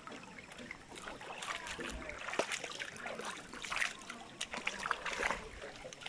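Feet wading through a shallow, rocky stream, splashing irregularly over the trickle of running water.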